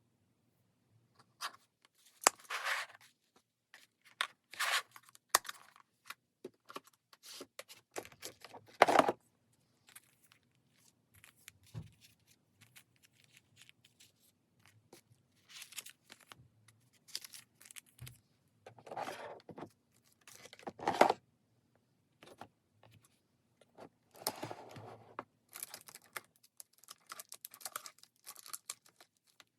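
Paper and stationery being handled at a desk: irregular short rustles, scrapes and tearing sounds, the loudest about two, nine and twenty-one seconds in.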